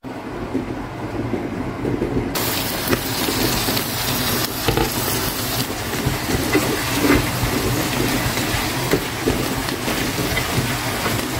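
Meat strips and bell peppers sizzling in a frying pan: muffled at first, then a sudden brighter, louder hiss about two seconds in. A spatula stirring adds a few scrapes and knocks against the pan.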